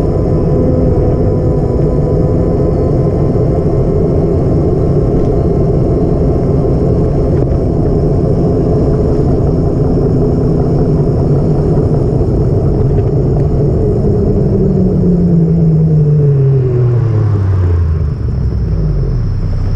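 A motor vehicle running with a loud, steady rumble. Near the end its engine note falls steadily over about four seconds as the revs drop, then settles lower.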